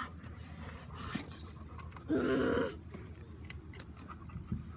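A pug sniffing and panting close by, with a short noisy puff of breath about two seconds in and faint scattered clicks and rustles.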